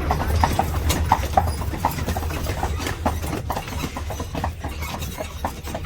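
Horse's hooves clip-clopping on the road as it pulls an Amish buggy, over a steady low rumble.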